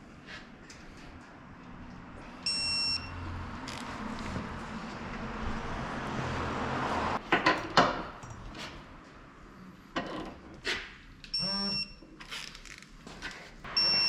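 Short electronic beeps, one about 2.5 seconds in, one about 11.5 seconds in and one at the very end, each a single steady tone lasting under half a second. Between them come scattered clicks and knocks of hand-tool work, loudest just before 8 seconds.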